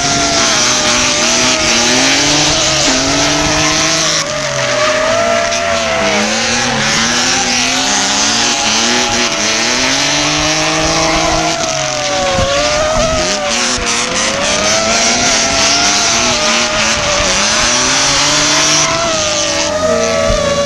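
Drift cars sliding in tandem, their engines revving and tyres squealing, with the pitch dipping and climbing again several times. Mixed in is the steady whine of the FPV drone's motors carrying the camera.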